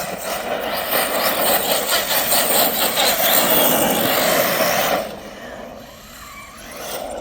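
Electric RC car's motor whining up and down in pitch over tyre scrabble as it is driven hard for about five seconds. It then drops away sharply and starts building again near the end.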